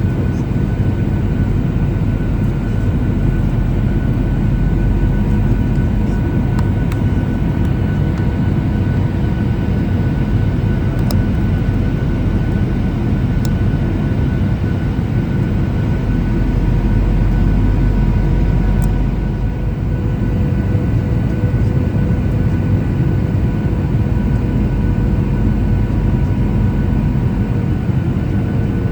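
Steady cabin noise of a Boeing 737-800 in flight on approach: a dense low rumble of airflow and its CFM56 turbofan engines, with faint steady whining tones above it. The low rumble swells briefly a little past the middle.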